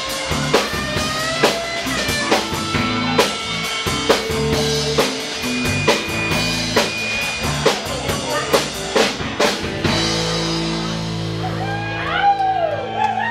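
Live alt-country band playing the end of a song: electric and acoustic guitars over a drum kit keeping a steady beat. About ten seconds in the drumming stops and a final chord rings out, and near the end whoops from the audience rise over it.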